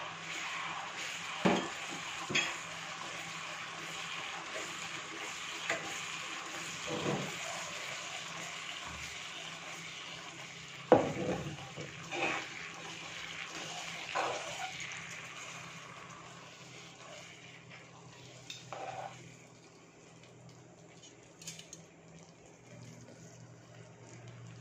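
Teriyaki sauce, thickened with cornstarch, sizzling and bubbling in a nonstick frying pan as metal tongs turn a piece of chicken, with several sharp clacks of the tongs against the pan. The sizzle dies down over the last several seconds, leaving a few light taps.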